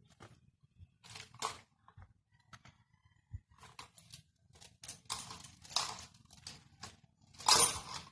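Irregular handling noises: short scrapes and rustles with a few sharp clicks, the longest and loudest scrape near the end.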